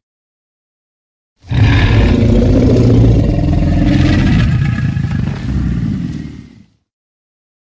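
Dinosaur roar sound effect for a cartoon Spinosaurus: one deep, drawn-out roar lasting about five seconds. It starts about a second and a half in and fades away.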